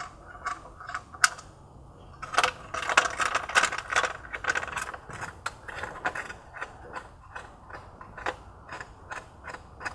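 Hand ratchet wrench clicking in quick runs as it loosens the bolts holding the drive axle's heat-shield cover.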